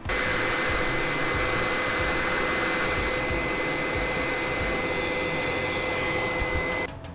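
Hot air rework station blowing steadily, a rush of air with a fixed high whine, as it heats a small surface-mount capacitor off a laptop motherboard to find out whether that part is shorted to ground. It cuts off suddenly near the end.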